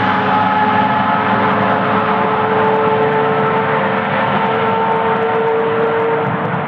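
Racing car engine held at steady high revs, a loud sustained droning tone that eases off slightly near the end.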